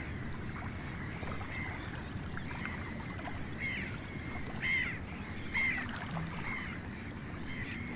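Short bird calls, each a quick rising-and-falling note, repeated about once a second through the second half, over a steady low wash of background noise at the water's surface.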